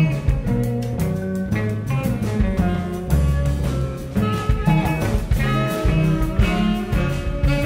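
Large jazz ensemble playing live: saxophones and other reeds over double bass, electric bass and drums, with a strong bass line and frequent drum hits.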